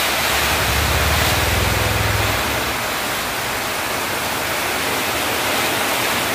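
Heavy rain pouring down in a loud steady hiss. A low rumble sits under it for the first couple of seconds, then drops away.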